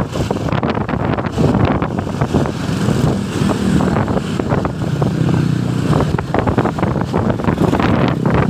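Road traffic passing close by, with a low engine drone that builds in the middle, and wind buffeting the microphone. No musical horn tones are heard.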